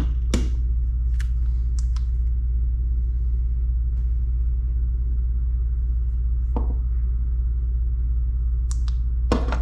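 Steady low rumbling hum, with a few light clicks and taps as the old header gaskets are handled.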